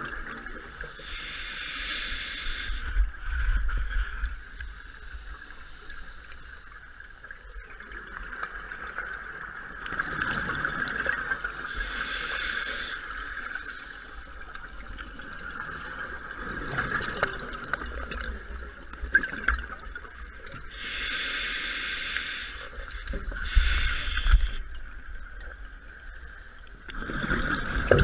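Scuba diver breathing through an open-circuit regulator underwater: a steady hiss, broken by bubbling exhalation bursts about every ten seconds, two close together near the end.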